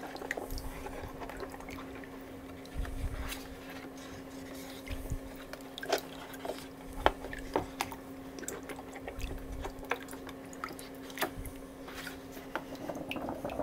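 A hand sloshing a photographic print around in a bucket of wash water, with small splashes and drips, during the wash between the black-and-white developer and the colour developer of an RA4 reversal print. A steady low hum runs underneath.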